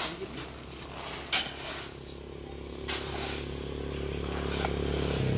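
A metal shovel scooping and turning a heap of granular fertilizer on a plastic tarp, with three sharp scrapes of the blade through the pellets about a second and a half apart. Under it runs a low engine hum from a passing vehicle that grows louder toward the end.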